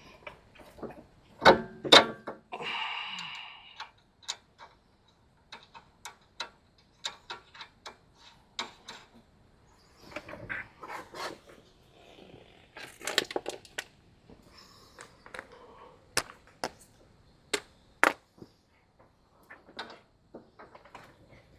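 Metal hand tools and suspension parts clinking and knocking while a sway bar end link is fitted. There are two loud knocks about a second and a half in, a short scrape right after, then scattered irregular clicks.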